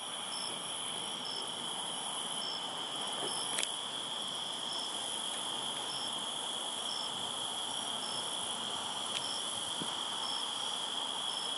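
Crickets chirping in a steady evening chorus, with a second insect calling in short pulses about once a second.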